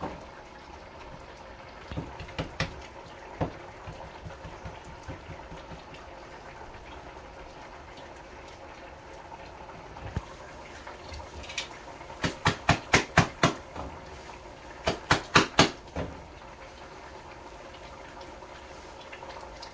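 Stovetop cooking of roti and curry: a steady low sizzle and simmer with a faint hum. A little past halfway come two quick runs of sharp slaps, about half a dozen each at roughly three a second.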